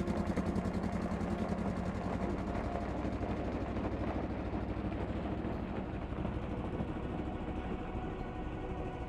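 Polaris Ranger side-by-side on snow tracks, its engine running with a fast, even pulse that slowly grows quieter.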